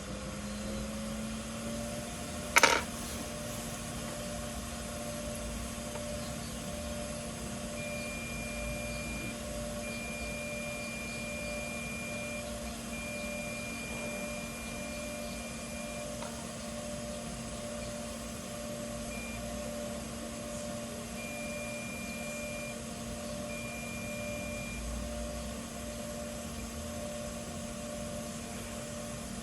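A small electric motor spinning up over about two seconds, then running with a steady hum. There is one sharp click about two and a half seconds in, and a faint high tone comes and goes through the middle.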